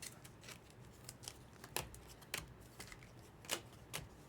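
Trading cards being handled: a handful of sharp clicks and snaps over light rustling as cards are flicked through and set down.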